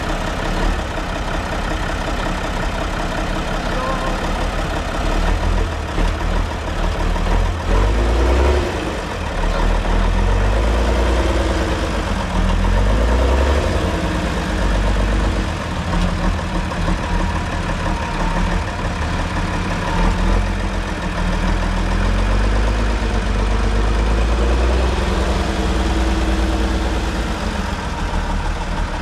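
Praga V3S six-wheel trial truck's diesel engine running under load as the truck crawls over rough dirt, its revs rising and falling several times.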